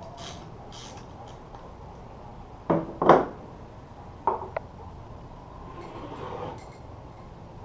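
Metal hand tools and transmission parts knocking on a wooden worktable during gearbox teardown: two sharp clanks about three seconds in, then two lighter ones a second or so later.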